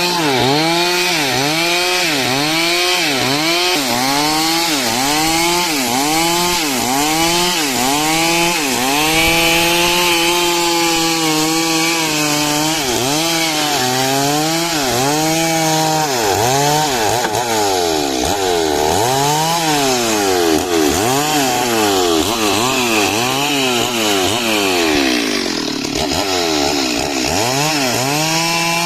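Two-stroke chainsaw cutting dry wood, its engine pitch dipping and recovering over and over, about once a second, as the chain bites into the timber under load. It holds a steadier pitch for a couple of seconds near the middle.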